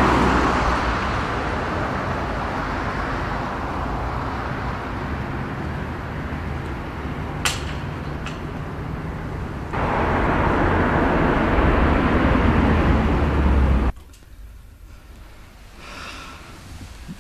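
Car engine and road traffic noise: a steady rush with a low engine hum and a single sharp click about seven and a half seconds in. From about ten seconds the rush grows louder, then cuts off suddenly near fourteen seconds, leaving only quiet room tone.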